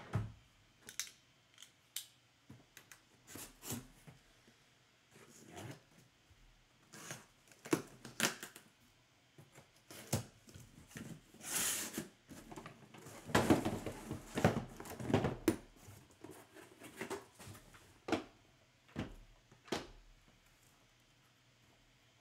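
A taped cardboard shipping case being slit open and its flaps pulled back, then shrink-wrapped card boxes slid out and set down. Scattered scrapes, rustles and knocks, with a longer rasp about halfway through and the busiest handling just after.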